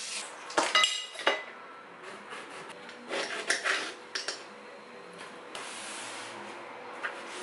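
A kitchen knife clinking and knocking against a glass plate as a pear is cut, with a few sharp ringing clinks about a second in and a run of knocks around three to four seconds in. From about five and a half seconds a cloth rubs steadily across the wooden countertop.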